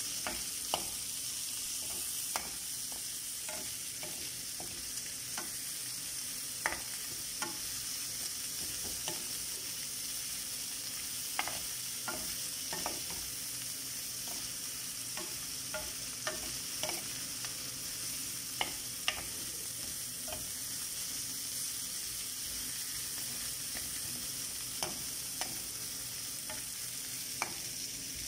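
Whole shell-on shrimp sizzling as they fry in a pan, a steady high hiss, with irregular clicks and scrapes of a spatula stirring them against the pan.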